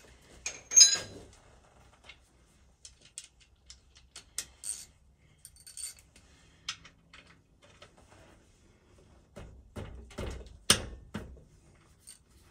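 Metal hand tools clinking and clattering: scattered light clicks and knocks, some with a short metallic ring, and a louder run of knocks near the end.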